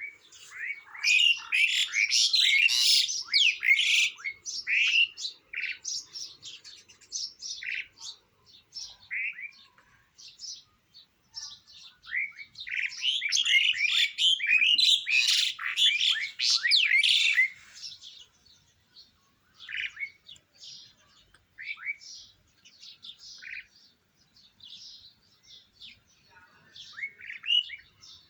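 A bird chirping and twittering in rapid runs of short, high notes, with two long loud spells and sparser chirps between them.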